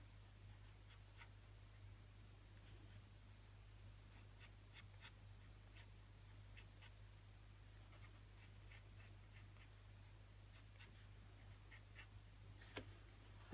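Marco Raffiné Sketch 7001 pencil scratching faintly across drawing paper in many short strokes, over a low steady hum.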